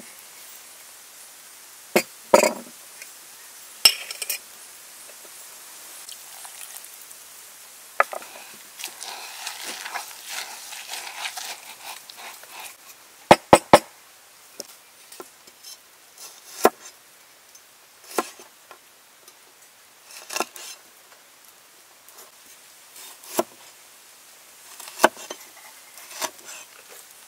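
Cooking utensils and dishes being handled: scattered clinks and knocks, with three quick sharp clicks near the middle and a soft hiss a few seconds before them.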